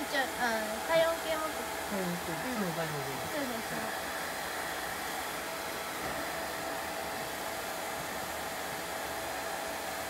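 Hand-held hair dryer blowing steadily with a constant motor whine while drying a dog's fur. A few short pitched sounds, falling in pitch, rise above it in the first three seconds.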